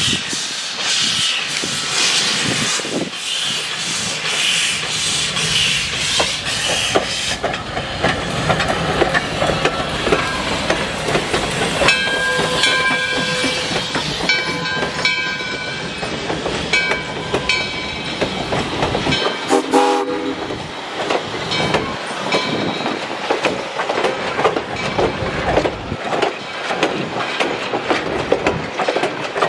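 Arcade & Attica #18, a 2-8-0 Consolidation steam locomotive, working hard past with rapid exhaust beats, then blowing its chime whistle in several blasts. After that the passing coaches clatter over the rail joints.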